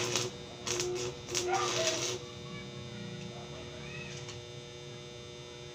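Arc welding in short sputtering bursts for about the first two seconds, with the welding machine humming under load. After that the arc stops and a steady hum remains.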